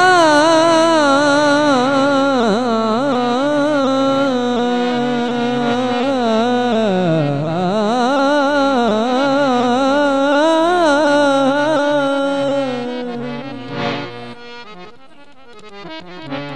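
Male folk singer holding a long, ornamented note into a microphone, the pitch wavering and sliding, over a steady instrumental drone. The voice drops away about thirteen seconds in, leaving quieter instrumental accompaniment with a few sharp plucked notes.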